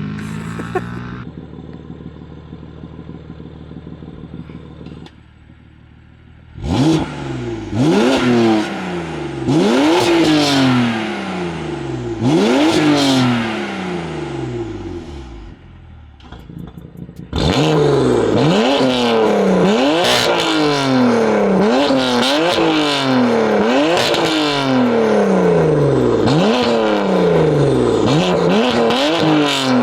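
BMW S55 twin-turbo inline-six through a Valvetronic equal-length exhaust, running steadily at first and then revved hard again and again, the pitch jumping up and falling back each time. The last stretch is a fast run of blips about once a second.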